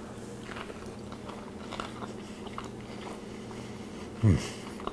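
A man chewing a mouthful of steak, with faint soft mouth noises. About four seconds in comes one short hum of his voice that falls in pitch.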